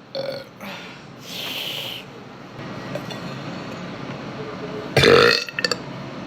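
A woman burping: a few short sounds and a breathy hiss in the first two seconds, then one loud burp about five seconds in, followed by a couple of clicks.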